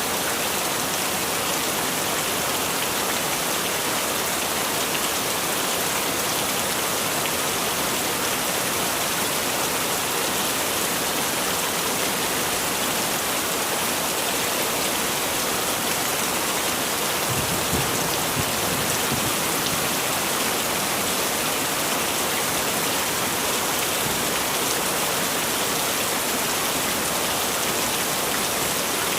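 Heavy rain falling steadily, an even hiss of drops on surfaces. About two-thirds of the way through there is a brief low rumble.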